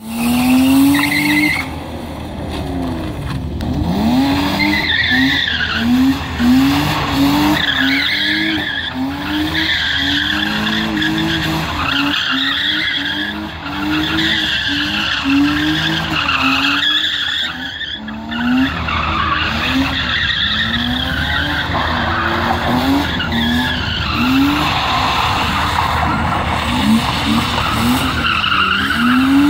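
BMW E30 drift car's engine revving hard up and down about once a second as the driver works the throttle through a drift, with the tyres skidding and squealing on wet tarmac.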